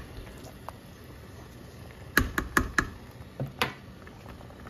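A metal spoon knocked against the rim of a cooking pot: four sharp knocks in quick succession about two seconds in, then one more a second later.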